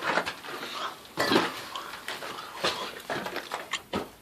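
Irregular light clinks, knocks and short hissy bursts of handling noise during work on a gas pipe joint.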